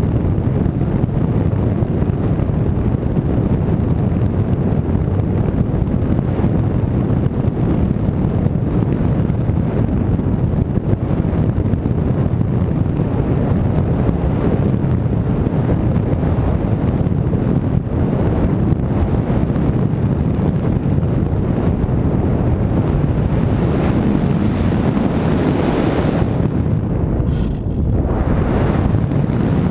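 Loud, steady wind buffeting the microphone, a low rushing rumble with no motor tone, dipping briefly near the end.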